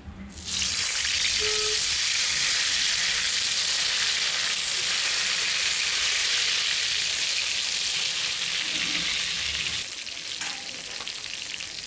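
Slices of eggplant sizzling as they fry in hot mustard oil in a kadai: a steady hiss that starts as the first pieces go into the oil and gets quieter near the end.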